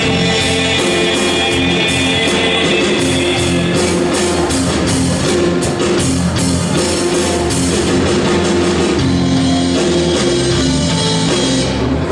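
Mixed choir singing a rock song a cappella in held chords, driven by a steady beatboxed drum beat from a male singer at a microphone.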